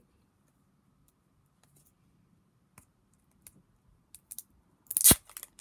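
Roll of clear sticky tape being handled: a few faint clicks, then about five seconds in a short loud rip as a length of tape is pulled off the roll.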